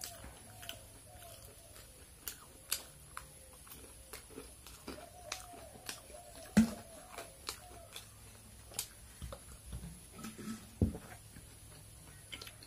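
Eating at a table: chewing, with sharp clicks and knocks of a spoon and hands against metal bowls and a plate. The loudest knocks come about halfway through and near the end. Soft, repeated cooing calls of a bird sound in the background.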